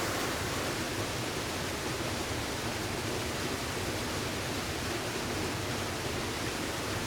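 Steady rush of flowing water from a small river waterfall close by.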